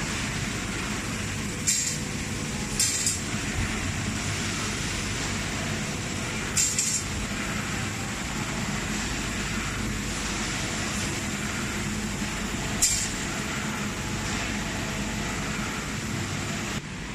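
Spiral-spring processing machine with a rotating abrasive drum, running steadily with a low hum. A few sharp metallic clinks, about four, ring out as the steel springs drop into the wire basket.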